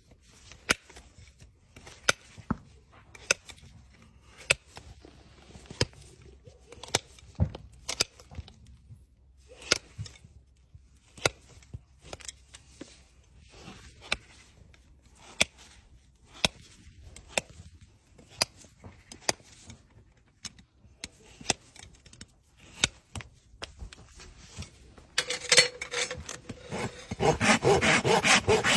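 Hoof nippers cutting through a horse's hoof wall, a sharp snap roughly every second. About 25 seconds in, a steel hoof rasp starts rapid, loud scraping strokes across the hoof, levelling the trimmed sole.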